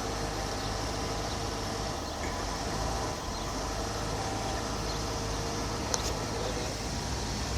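Pickup truck engine idling steadily with a low hum, and a single sharp click about six seconds in.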